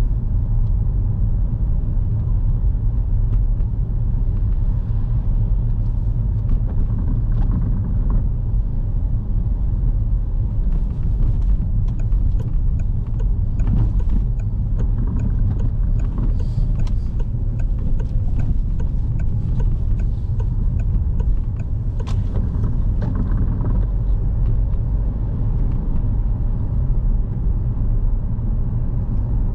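Car driving, heard from inside the cabin: a steady low rumble of engine and road noise, with scattered light clicks through the middle stretch.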